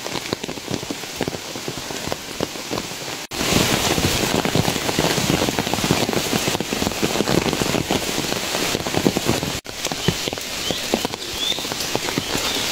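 Heavy mountain rain falling, a dense patter of drops striking close to the microphone. It cuts out for an instant about three seconds in and comes back louder, with another brief dropout near the end.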